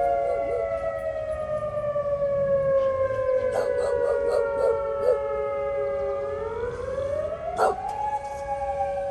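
Outdoor tornado warning sirens wailing during their monthly test: one tone holds a steady pitch while a second slides slowly down in pitch, then rises back up about two-thirds through.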